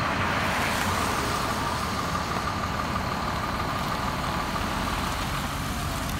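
Fire truck engine idling in the open station bay: a steady engine rumble with a constant high-pitched tone over it. The noise swells briefly in the first second.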